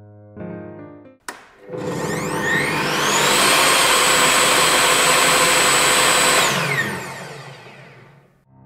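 Bosch GTS 10 XC table saw's universal motor switched on with a click, spinning up with a rising whine to a loud steady run of about three seconds with no load, then switched off and winding down with a falling whine to a stop.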